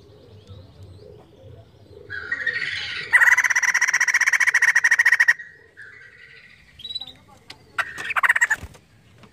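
White-crested laughingthrush calling: after a rising call, a loud, rapid chattering rattle lasts about two seconds. It is followed by a few softer notes and a shorter rattling burst near the end.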